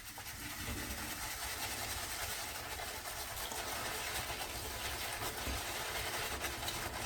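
Shaving brush with a 24 mm two-band knot swirled round in a tub of shaving soap, a steady swishing as it loads up with soap.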